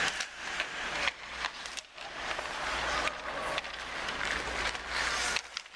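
Ice hockey skates scraping and carving on the ice, the hiss swelling and fading as players turn and stop, with several sharp clacks of sticks and puck.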